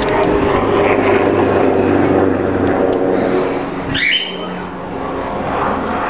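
An airplane passing overhead: a steady, loud drone of engines. About four seconds in, a brief sharp high sound cuts across it and the drone carries on more quietly.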